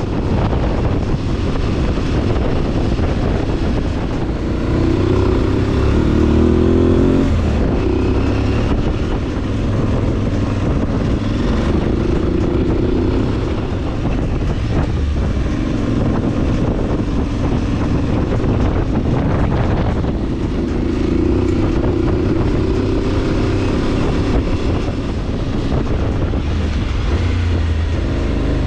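Motorcycle engine running under way, its pitch climbing and dropping with throttle and gear changes.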